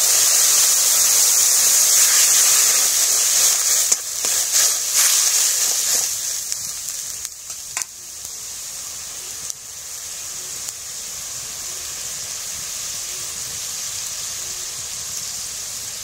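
Water poured into hot oil and spices in an iron kadai, sizzling loudly and dying down after about six seconds to a quieter steady simmer. A few sharp knocks come around four to five seconds in.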